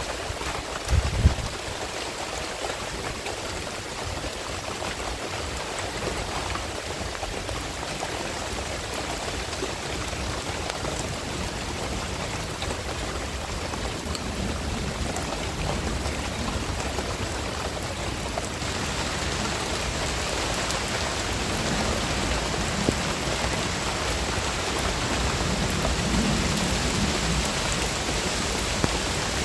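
Steady rain falling on palm fronds and garden foliage, growing a little louder about two-thirds of the way in.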